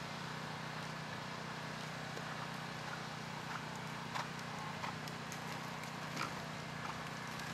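A horse's hooves trotting on the sand footing of an arena: a scattering of soft, uneven ticks and knocks over a steady low hum.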